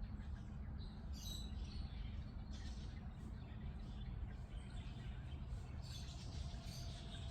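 Budgerigar giving short, high chirps on and off, over a steady low rumble.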